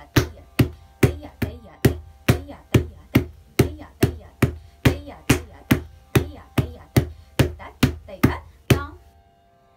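Bare feet stamping flat on a wooden floor in the Bharatanatyam tatta adavu: a steady beat of sharp thuds, a little over two a second, that stops about nine seconds in.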